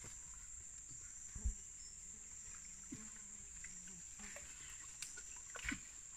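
Steady high-pitched drone of forest insects, with a few faint knocks about a second and a half in and again near the end.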